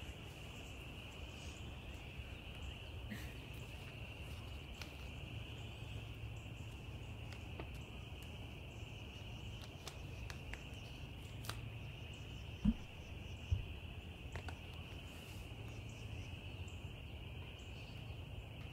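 A steady, high-pitched chorus of calling animals runs over a low outdoor rumble. Two short, dull thumps come about two-thirds of the way through, under a second apart.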